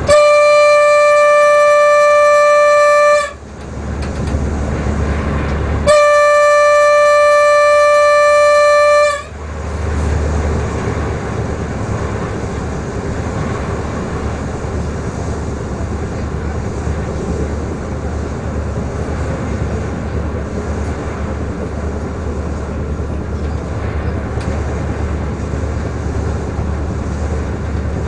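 Class 648 LINT diesel railcar's horn sounding two long blasts of about three seconds each, a single steady tone, blown at a whistle board. After the blasts, the railcar's steady running noise is heard from the cab.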